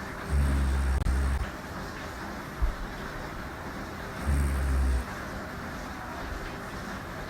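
A woman snoring in her sleep: two low snores, each about a second long, about four seconds apart.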